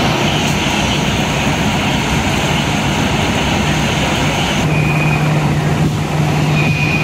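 A heavy engine running steadily, a loud low drone under a rushing hiss. About four and a half seconds in the hiss drops away, leaving the drone and a couple of short high beeps.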